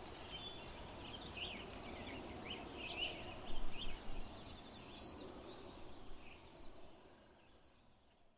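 Many short, high animal calls over steady outdoor background noise, with a louder sound about three and a half seconds in; the sound fades out near the end.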